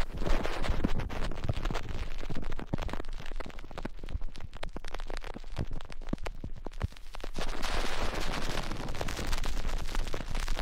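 Crackling static: a dense, irregular run of sharp clicks and pops over a steady hiss and low hum, starting abruptly. The hiss grows brighter for a few seconds near the end.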